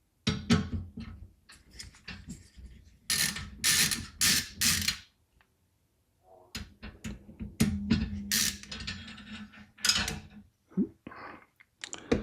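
Small PC case parts being handled and taken apart: irregular clicks, knocks and rattles, with longer scraping sounds about three to five seconds in and again near eight to ten seconds.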